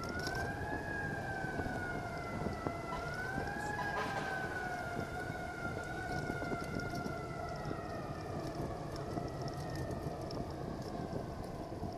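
Emergency-vehicle siren wailing, its pitch slowly rising and falling twice and then sliding down, over steady wind and road noise on a bike-mounted camera's microphone.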